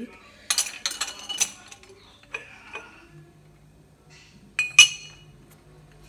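Red glass carafe and tumblers clinking against each other and their metal wire rack as they are handled and set in place. A cluster of clinks comes in the first second and a half and a few lighter ones follow at around two and a half seconds. One sharp, ringing clink, the loudest, comes near five seconds.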